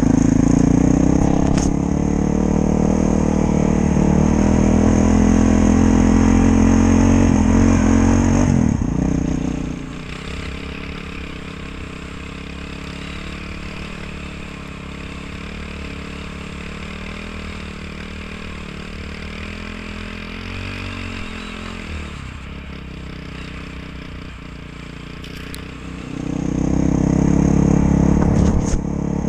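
Honda CRF450L's single-cylinder four-stroke engine running under load. About nine seconds in its note falls away and the sound drops to a quieter, lower engine hum for about sixteen seconds. Near the end the loud engine returns.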